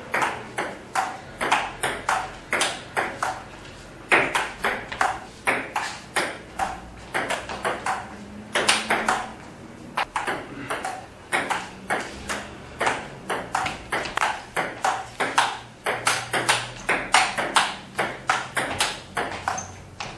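Table tennis rally: a celluloid ball clicking back and forth off rubber paddles and the table top at roughly two to three hits a second, with brief pauses between points about four and ten seconds in.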